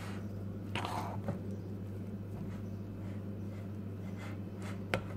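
Hand mixing flour and lukewarm water into a soft yeast pizza dough in a bowl: soft rustles of the shaggy flour with a brief scrunch about a second in and a sharp click near the end, over a steady low hum.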